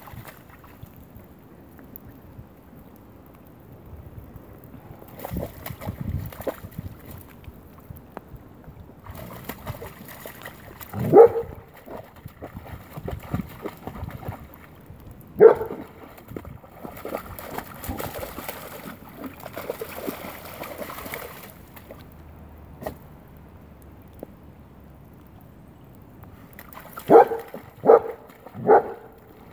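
A German Shepherd splashing and pawing through a shallow puddle, with a few short barks: one about eleven seconds in, another a few seconds later, and three in quick succession near the end.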